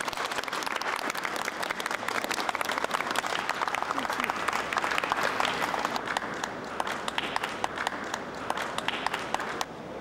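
A crowd applauding, many hands clapping at once. The clapping eases off a little in the second half and stops shortly before the end.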